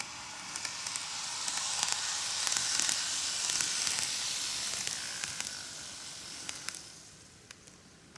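N-gauge model train running past on model track: a hissing rush of wheels and motor that builds, peaks and fades away, with small clicks from the rail joints.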